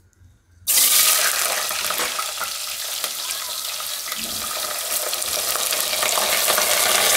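Chunks of freshly washed, unpeeled potato tipped from a bowl into hot oil in a pressure cooker. A sudden loud sizzle starts under a second in and keeps going as more pieces are poured in.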